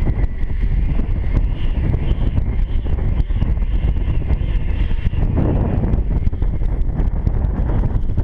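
Wind buffeting the microphone of a camera riding along on a flying fox: a loud, steady low rumble from moving fast through the air.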